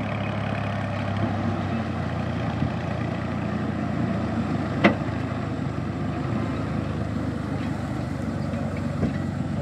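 Farm tractor engine running steadily as it pulls a trailer piled high with rolled rice straw, with one sharp click about five seconds in.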